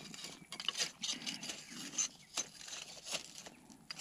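A spoon clicking and scraping against a camp cooking pot during a meal, in faint, irregular light strokes.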